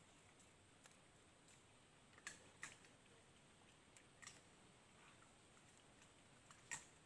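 Near silence: a faint steady high hiss with a handful of faint, sharp clicks a second or more apart, the loudest near the end.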